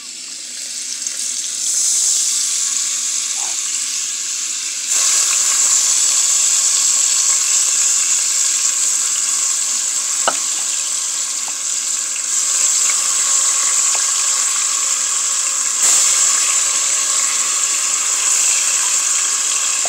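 Seasoned chicken breasts frying in hot oil and butter in a pot: a loud, steady sizzle that builds over the first couple of seconds, then jumps louder about five seconds in and again near the end as more pieces go into the oil.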